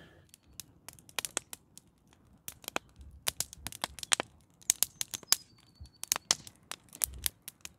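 Wood fire crackling, with irregular sharp snaps and pops from burning boards and branches.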